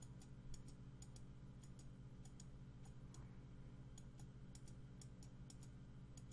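Faint quick clicking of a computer mouse, several clicks a second at irregular spacing, over a low steady hum.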